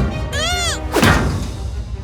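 Cartoon thud of a giant tyre bouncing, about a second in, over background music, with a short startled 'oh!' just before it.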